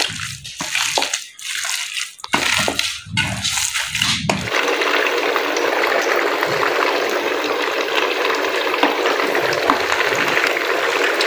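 Hands squelching through a minced-meat kebab mixture in a bowl, uneven and broken; then, from about four and a half seconds in, a steady sizzle with fine crackling as kebabs shallow-fry in hot oil in a pan.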